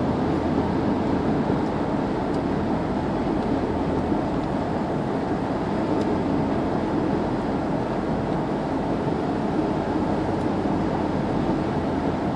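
Steady road noise heard inside a car's cabin while it drives along a highway: tyres on the asphalt and the engine running at an even cruising pace.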